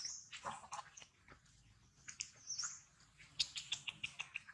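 Sharp mouth clicks and smacks from long-tailed macaques, one of them chewing a piece of fruit, ending in a quick run of clicks; two short high chirps come in, one at the start and one about halfway.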